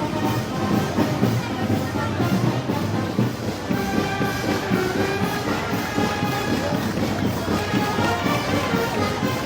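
Festival band music playing live with a steady beat, typical of Moros y Cristianos parade music, with voices underneath.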